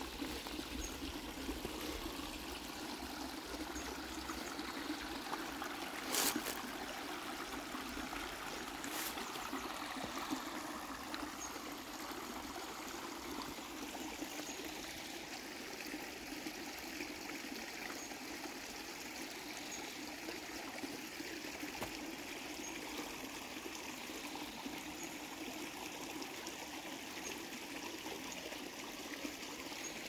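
Shallow creek water trickling and babbling steadily over rocks and roots. A sharp knock comes about six seconds in, and a fainter one about three seconds later.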